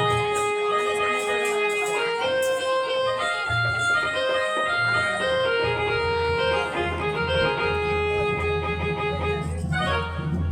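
Organ-voiced keyboard playing a melody of long held notes, over a low pulsing beat.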